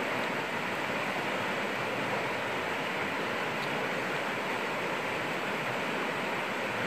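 River rapids rushing steadily over rocks, a continuous even hiss of running water.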